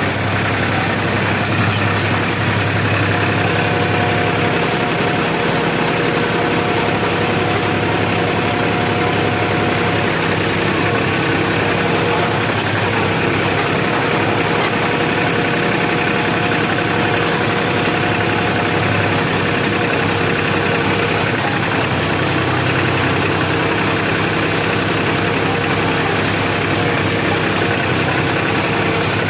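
Potato harvester machine running steadily: a constant engine hum with a couple of steady whining tones over a wide mechanical noise.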